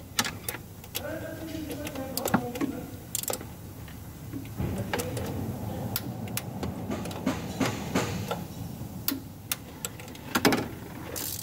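Socket wrench ratcheting in short runs of clicks while tightening the 12 mm mounting bolts of a Nissan YD25 diesel's fuel supply pump, with scattered metal-on-metal clicks.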